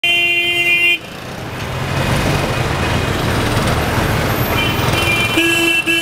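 Vehicle horns honking in dense city traffic, over the engines and road noise. One horn sounds for about the first second, then traffic noise runs on, and horns start up again about four and a half seconds in, honking repeatedly near the end.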